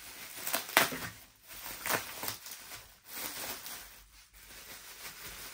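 Bubble wrap rustling and crinkling as a taped-up package is pulled open by hand, with several sharp rustles in the first two seconds and softer handling after.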